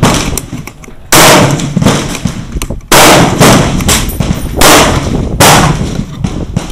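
Gunshots from firearms on a shooting range: four loud shots spaced about one to two seconds apart, each followed by a long echoing tail.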